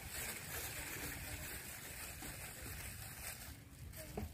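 Faint, steady outdoor background: a low rumble under an even hiss, with a couple of small clicks near the end.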